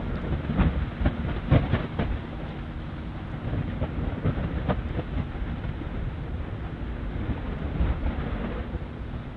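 Low rumbling of an erupting volcano's fissure and lava field, with irregular cracks and knocks through the first five seconds or so.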